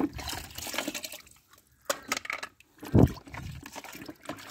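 Water sloshing and splashing as a hand swishes through muddy water in a plastic bucket, with one louder dull thump about three seconds in.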